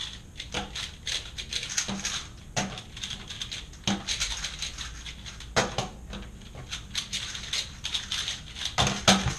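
Rubik's cube being turned rapidly by hand: a dense run of quick plastic clicks and rattles, with a few sharper knocks, the loudest near the end.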